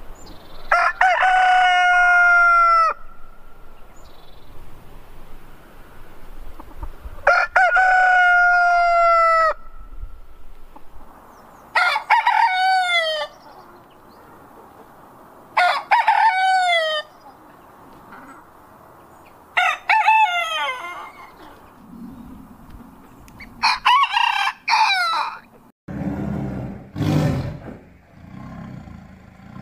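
Roosters crowing one after another: six drawn-out crows a few seconds apart, each falling in pitch at its end. Near the end, a low growl from a tiger.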